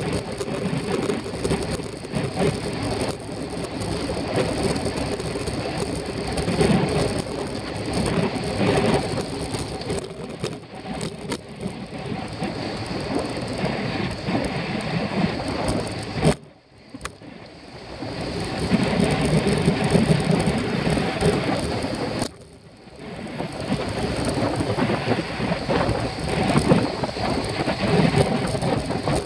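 Wind and road noise on a bicycle-mounted camera riding at race speed: a steady rushing that swells and fades, dropping away sharply twice for about a second.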